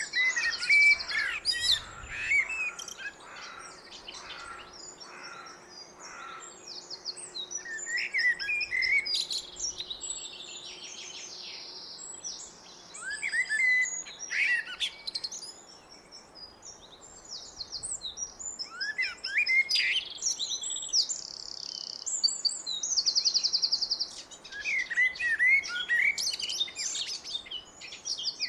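Blackbird singing: warbled phrases every few seconds that end in high twittering, with other birds chirping and trilling throughout.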